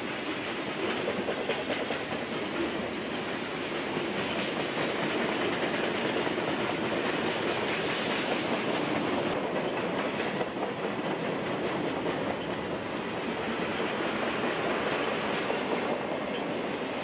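Freight cars of a long mixed freight train rolling past on jointed track: steady wheel and rail noise with a clickety-clack of wheels over the rail joints.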